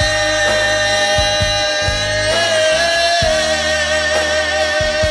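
Live regional Mexican band music: a long held note wavers in pitch midway, over bass and drum hits.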